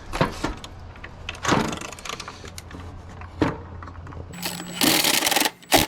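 Several sharp metal knocks, spaced out over the first three and a half seconds, as a part is pounded on to drive it out of a Porter Cable table saw, followed near the end by a short dense hissing burst and a few quick clicks.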